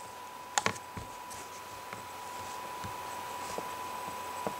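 Computer mouse clicking: one sharp click about half a second in, a couple of fainter clicks just after, and another faint one near the end, over a faint steady tone.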